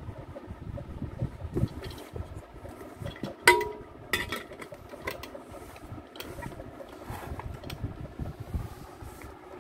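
Stainless steel pressure cooker lid and body knocking together as the lid is fitted: a sharp metallic clink with a brief ring about three and a half seconds in, then a second click and a few lighter clicks and knocks, over a steady low background rumble.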